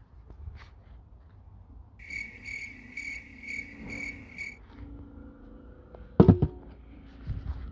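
A cut-open metal catalytic converter and its metal honeycomb core being handled, with a loud metallic clank about six seconds in and a smaller knock just after. Earlier, an insect's high chirp pulses about twice a second for a couple of seconds.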